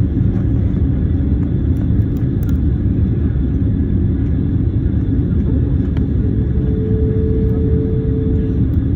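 Jet airliner cabin noise: a steady deep rumble of engines and rushing air, with a thin steady hum that comes in about two-thirds of the way through and drops out near the end.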